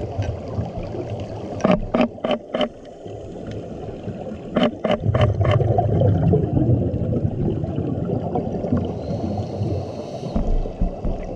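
Underwater sound during a scuba dive: a steady low gurgling rumble of water and exhaled regulator bubbles, heaviest midway. It is broken twice by a quick run of four sharp clicks, and a faint high whistle is heard near the end.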